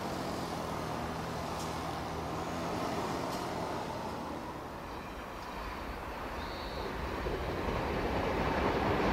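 Electric train approaching, its running noise growing louder over the last few seconds.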